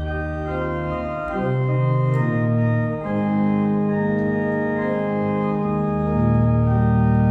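Organ playing the hymn tune in sustained chords over a slowly moving bass line, an instrumental interlude between verses of the hymn.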